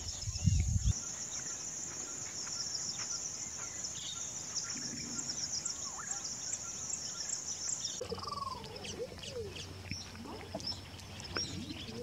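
Wild birds calling: about eight seconds of dense, rapid, high-pitched chirping, then an abrupt change to scattered bird calls and falling whistles. A few low thumps come in the first second.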